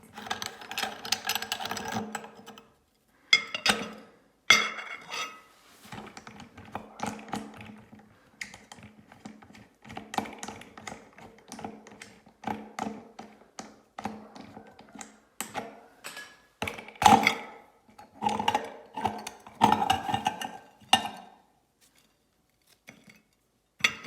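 Meat grinder working through Oreo cookies: irregular bursts of mechanical clicking and rattling with short pauses, going quiet for a couple of seconds near the end.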